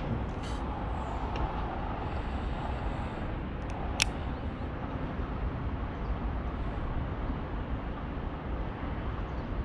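Steady outdoor background rumble with a single sharp click about four seconds in.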